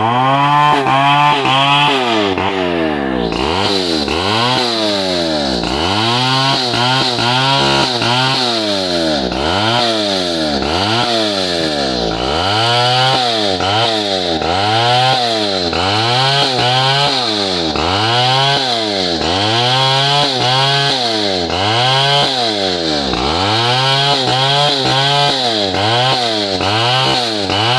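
Stihl 070 two-stroke chainsaw running loud while cutting through yakal hardwood. The engine pitch dips and climbs back about once a second as the chain loads down in the cut and recovers.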